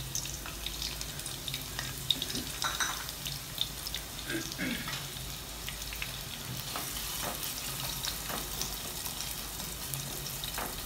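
Sliced onions sizzling in hot oil in a nonstick kadhai, a steady hiss with scattered crackles. Near the end a wooden spatula stirs them through the oil.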